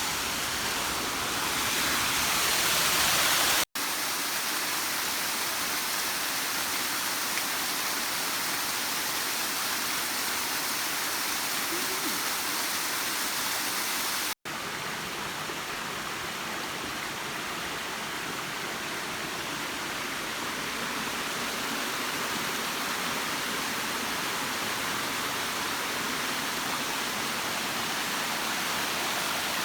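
Waterfall rushing steadily: an even, loud hiss of falling water that swells over the first few seconds. It breaks off for an instant twice, about four and about fourteen seconds in.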